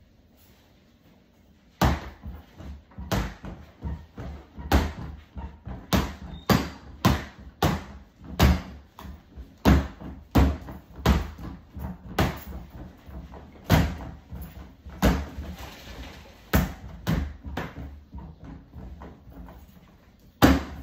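A plastic toy bat striking a free-standing punching bag over and over, a sharp thud each time, about one or two a second and unevenly spaced, starting about two seconds in.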